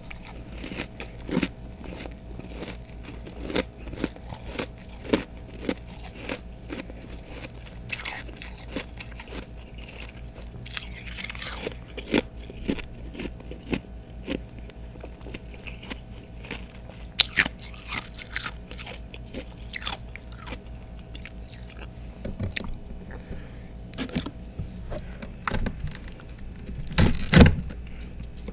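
Close-up crunching of ice being bitten and chewed, freezer frost and thick ice chunks, with many sharp, irregular cracks and a few longer grinding crunches. The loudest bites come near the end.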